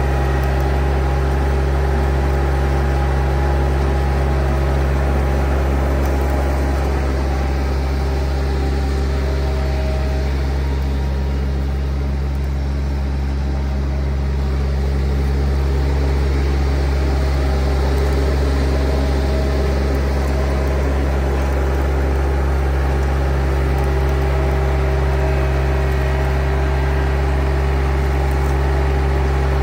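John Deere X700-series garden tractor engine running at a steady speed with an even, low hum. It gets slightly quieter about halfway through as the tractor moves off, then comes back up.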